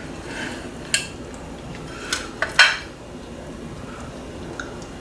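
A knife clicking and clinking against a plate as an apple guava is cut into pieces: one sharp click about a second in, then a quick cluster of three around two to two and a half seconds in.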